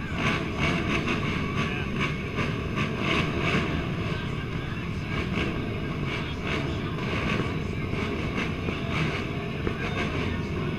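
Pack of race ATV engines running together at a starting line, with crowd chatter.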